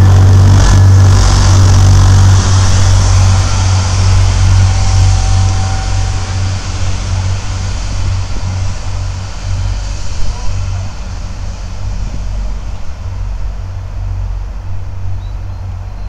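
Irish Rail 29000 class diesel multiple unit pulling out past the platform. Its diesel engines give a steady low drone, with a hiss of running gear that is loudest at first. The sound slowly fades as the train moves away.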